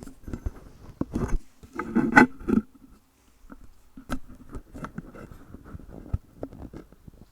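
Handling noise of an earphone and its cable being moved and positioned: irregular clicks, knocks and rubbing, heaviest in the first two and a half seconds, then scattered light ticks.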